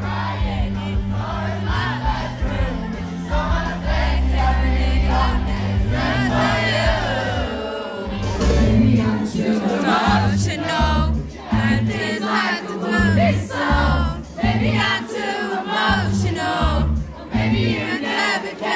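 Live pop music played loud over a concert sound system: a singer's voice over a heavy bass beat, with crowd noise and many voices singing along.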